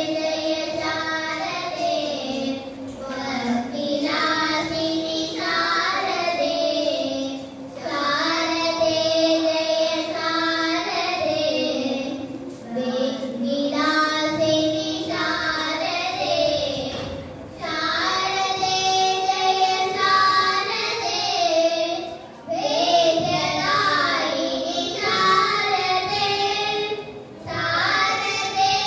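Two girls singing a Carnatic classical vocal duet through microphones, in gliding phrases several seconds long with short breaks between them.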